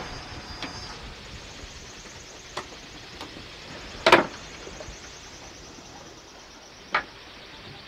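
Steady rush of water and wind past a sailing yacht's hull under sail, with no engine running. A few sharp knocks sound on the deck and fittings as a crew member moves aft to the cockpit winch; the loudest is about four seconds in.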